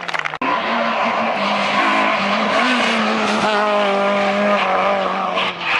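Rally car engine running hard as the car takes a tight tarmac corner, its note rising and dipping. Sudden cut in the sound about half a second in.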